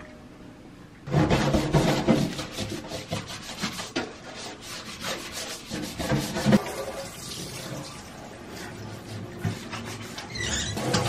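Rubber-gloved hands scrubbing a wet stainless-steel sink in quick rubbing strokes, starting about a second in and thinning out later. Near the end, water starts running and splashing into the sink.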